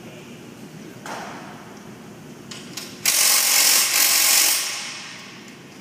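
Handheld power tool run in two bursts: a short one about a second in, then a loud one lasting about a second and a half, starting about three seconds in and tailing off.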